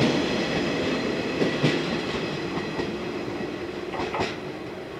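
Yellow JR West 115 series electric train pulling away, its running noise fading, with wheels clacking over rail joints in pairs.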